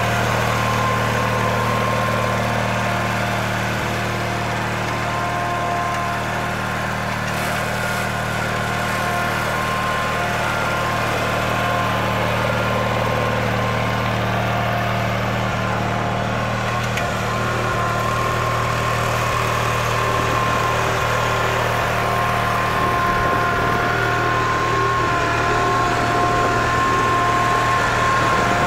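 Grasshopper 718 zero-turn riding mower's engine running steadily as the mower drives across the grass, with a whine that fades in and out.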